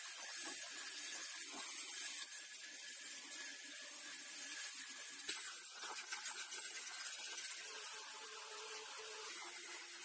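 Small high-speed handheld rotary tool running against metal with a steady, scratchy whir and a faint motor hum whose pitch shifts about eight seconds in, as in cleaning rust from the cake slicer's parts.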